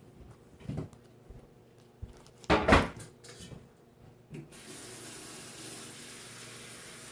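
A brief loud clatter, then a water tap turned on about halfway through, running steadily into the sink.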